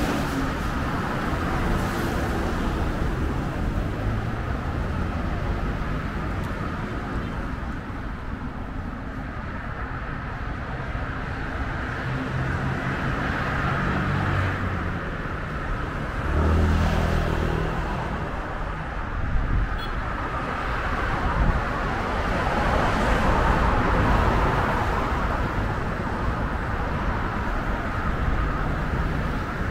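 City street traffic: cars driving past in a steady hum, with one vehicle passing louder about halfway through.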